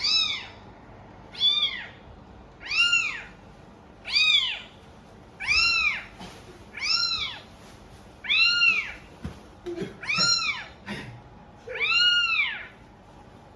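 Domestic cat meowing over and over: nine separate meows, each rising and falling in pitch, about one every second and a half.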